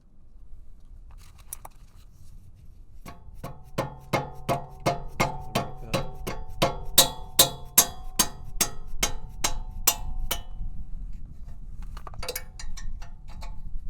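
A hammer repeatedly striking a 14 mm combination wrench on a stuck rear brake caliper bracket bolt, to break the bolt loose. The strikes are sharp and metallic, each ringing briefly, at about two to three a second for some seven seconds, followed by a few lighter clinks of tools near the end.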